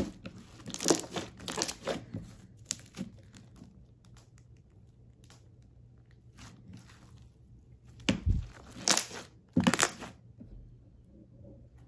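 Chocolate-cookie-crumble slime being squeezed and kneaded by hand, giving wet crackling squishes in bursts. There is a quiet stretch in the middle, and the loudest squishes come about eight to ten seconds in.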